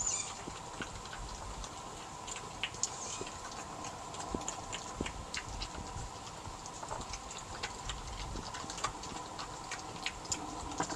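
Two European badgers eating peanuts from a plastic feeding tray: irregular crunching and clicking as nuts are chewed and knocked about, over a faint steady hum.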